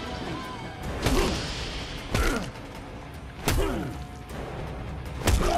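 Four heavy punches landing on a man, about a second or more apart, each hit followed by a short falling groan.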